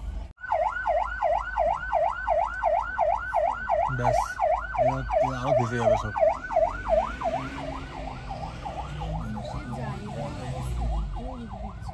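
Ambulance siren in a fast up-and-down warble, about three sweeps a second. It is loudest for the first several seconds and fades after about seven seconds.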